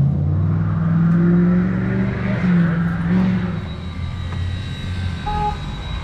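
A car engine passing close by on the street, loud through the first three seconds with its pitch shifting up and down, then fading away.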